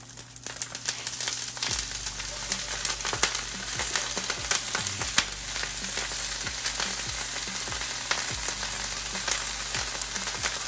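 Mixed vegetables frying in hot canola oil in a frying pan. The sizzle swells up within the first second as they go in, then holds steady with frequent small pops and crackles.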